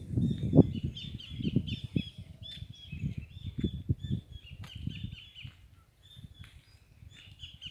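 Small birds chirping again and again in quick, high notes, over irregular low rumbling bursts that are loudest in the first half and die down after about five seconds.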